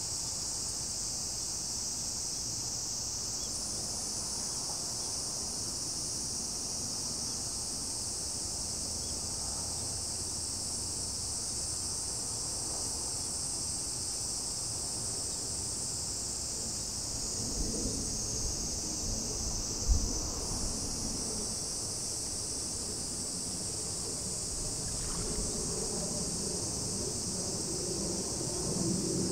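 Steady, high-pitched chorus of insects, with more of them joining in a few seconds in and again about two-thirds of the way through. Gusts of wind buffet the microphone a little past the middle, with one sharp thump among them.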